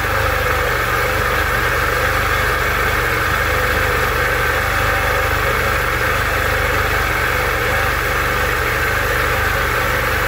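Freshly rebuilt Sea-Doo GTX 951 DI two-stroke twin idling steadily while its direct-injection fuel pressure is tested.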